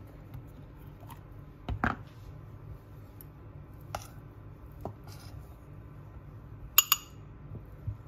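Cooked brown rice being portioned from a stainless steel pot: a silicone spatula scrapes and knocks against the pot a few times, and two sharp ringing clinks come close together near the end as a glass storage container is handled. A low steady hum runs underneath.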